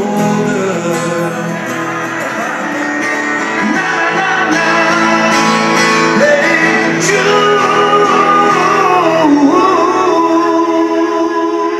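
A man sings and plays an acoustic guitar live, holding long notes in the second half.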